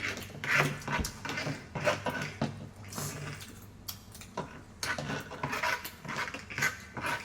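A person eating close to the microphone: chewing, with utensils clicking against a dish in irregular short sounds.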